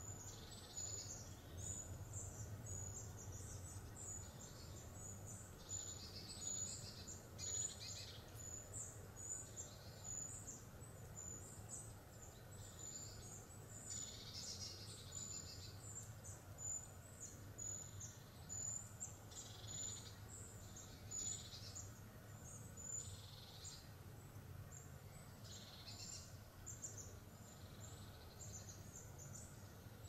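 Several small birds singing and calling in woodland: many short, high, overlapping phrases repeated throughout, over a faint steady low hum.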